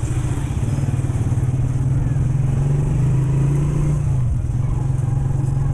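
Motorcycle engine running steadily at low riding speed. Its pitch rises slightly, then eases off about four seconds in.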